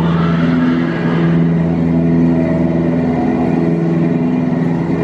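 Tour boat's engine running steadily, a low drone with a constant hum, with a brief rush of hiss in the first second and a half.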